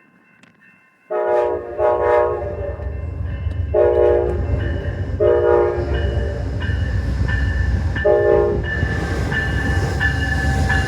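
Amtrak passenger train's multi-tone horn sounding five blasts over the train's steady rumble: two short blasts about a second in, two longer ones in the middle, and a last short one. Rail noise grows toward the end.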